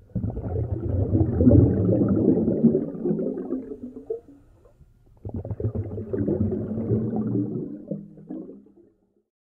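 Muffled low rumbling and water noise heard through a GoPro's waterproof housing as the camera moves underwater, in two surges of about four seconds with a short hush between them, then near silence just before the end.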